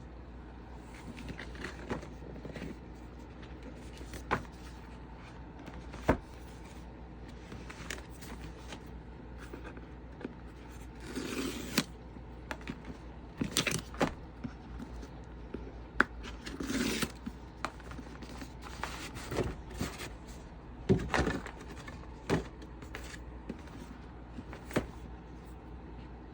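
Packaging being handled and opened: scattered clicks and taps with a few short scraping, rustling stretches over a low steady hum.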